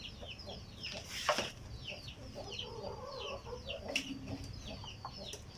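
Chickens peeping and clucking: a rapid, steady run of high peeps that fall in pitch, several a second, with lower clucks in the middle. A sharp knock comes about a second in and another around four seconds.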